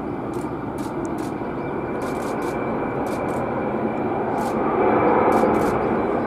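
Boeing 747-400 freighter's four jet engines at takeoff power during the takeoff roll, heard from a distance: a steady rushing roar with a faint high whine, growing louder about five seconds in as the jet passes closer.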